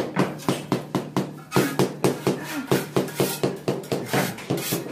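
Quick, regular tapping, about three or four knocks a second, of a hand tool striking a stone floor tile to bed it down as it is laid.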